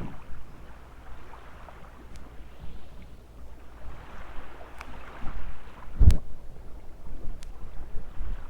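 Waves washing on a sandy beach in swells, with wind buffeting the microphone; a single dull thump about six seconds in.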